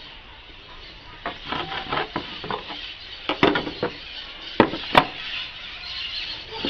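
Small tool handling on a plywood board: scratchy pencil strokes and light knocks while a line is marked along a steel try square, then two sharp metallic clacks about half a second apart as the square is put down.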